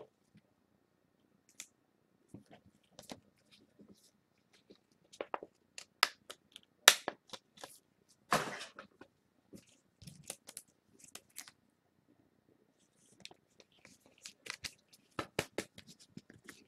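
Trading-card packs and cards being handled: scattered soft crackles and clicks of wrappers and cards, with a brief louder rasp about eight seconds in.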